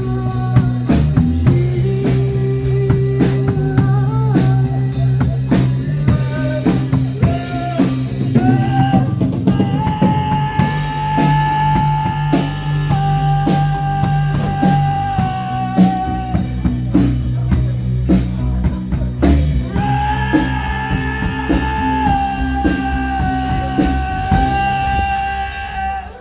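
Rock music with electric guitar over a drum kit, the guitar holding long, drawn-out notes through the middle and again near the end.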